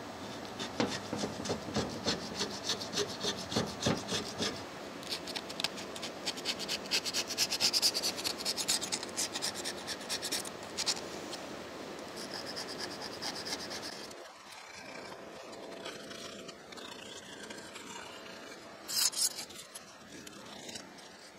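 A blade scraping old gasket sealant off the metal mating flange of a machine gearbox in quick, repeated strokes. It goes quieter about two-thirds of the way through, with one short burst of scraping near the end.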